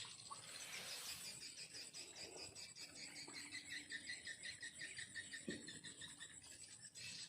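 Faint insect chorus of crickets chirping in fast, even pulses over a steady high-pitched buzz, with a soft knock about five and a half seconds in.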